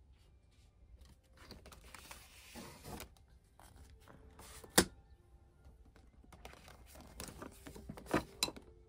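Quiet handling of desk items: rustling, one sharp click a little under five seconds in, and two more knocks near the end as a spiral notebook is drawn out of a clear plastic desk organiser.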